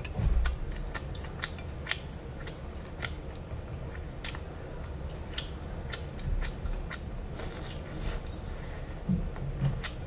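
Close-miked chewing of boiled shrimp: a run of sharp, crisp clicks, irregular at about one or two a second, over a low steady hum.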